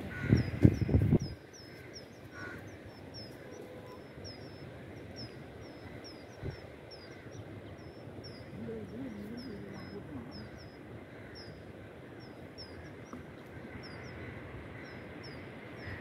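A small bird chirping over and over, short high chirps about two or three a second. A brief low rumble in the first second is the loudest sound.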